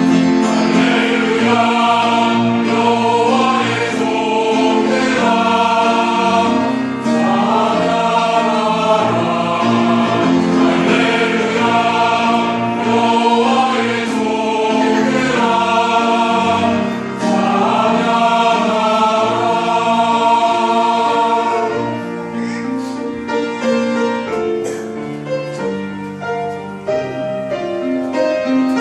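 Church choir singing a hallelujah praise anthem with piano accompaniment. About two-thirds of the way through, the voices drop out and the piano carries on more quietly.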